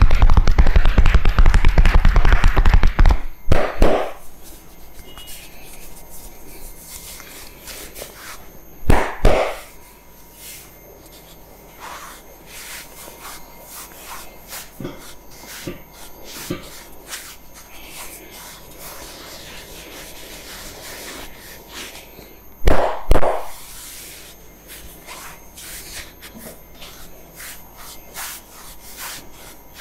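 Hands massaging a head and neck. A loud, fast run of hand taps stops about three seconds in. After that comes quieter rubbing of hands over skin and hair, with a few loud sharp slaps: about four seconds in, about nine seconds in, and a quick pair near twenty-three seconds.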